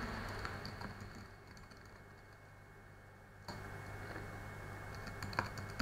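Faint typing on a computer keyboard: scattered key clicks, a quiet pause in the middle, then more keystrokes with a sharper click near the end.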